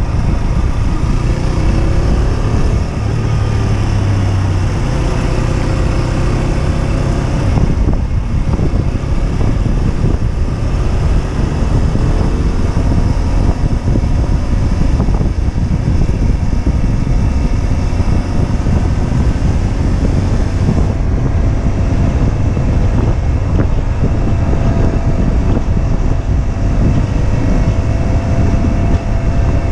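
Husqvarna Svartpilen 125's single-cylinder engine running under way, its note rising and falling, buried in heavy wind rush on the camera microphone.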